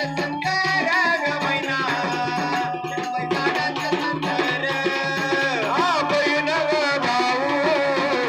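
Live Marathi folk (jagran) music: a keyboard melody with sliding pitch over a fast, steady tabla-style drum rhythm.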